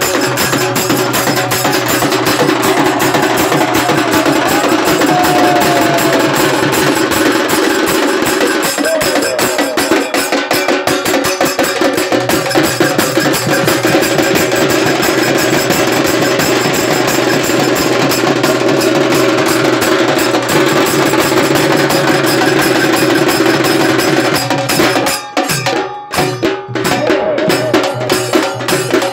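Live percussion-led music: a hand-played barrel drum and a stick-played snare drum keep up a fast, dense beat over a steady held note. The beat breaks off briefly near the end, then starts again.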